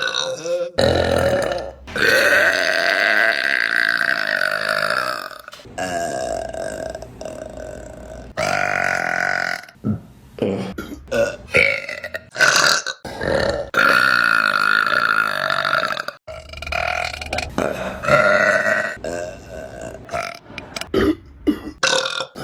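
A run of women's burps, one after another: several long, drawn-out burps lasting a second or more, the longest about three and a half seconds, with quick clusters of short burps between them.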